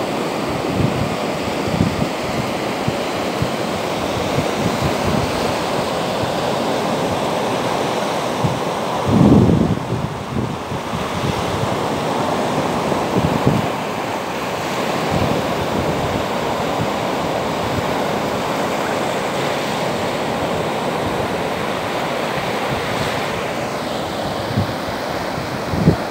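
Sea surf: small waves breaking and washing up a sandy beach, a steady rush of foam. Gusts of wind buffet the microphone now and then, the strongest about nine seconds in.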